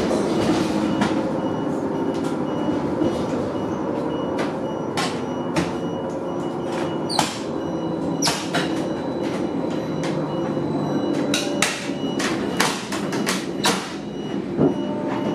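Inside a Neoplan AN440LF electric trolleybus: a steady hum under a run of sharp clicks and knocks from a roof hatch in the ceiling being worked by hand, coming thick and fast in the last few seconds.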